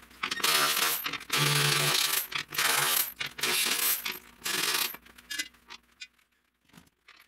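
Small cordless driver with a T45 Torx bit spinning out bumper bolts in about five short whirring bursts, its pitch wavering with the trigger. A few light clicks follow near the end.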